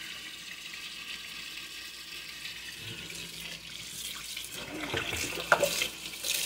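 Kitchen faucet water running into a sink, first from a pull-down sprayer rinsing around the drain, then as a stream over hands, growing louder near the end. A light knock about five and a half seconds in.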